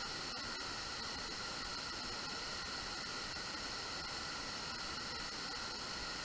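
Steady, even hiss of a flood-swollen creek's rapids rushing.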